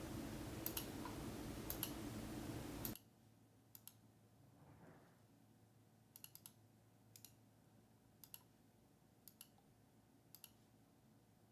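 Computer mouse clicking faintly, mostly in quick double clicks about once a second. A steady background hiss cuts off suddenly about three seconds in.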